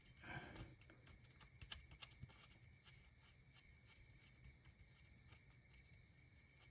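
Near silence: faint room tone, with a brief soft rustle just after the start, a few faint clicks in the first two seconds, and a faint high tick repeating about twice a second.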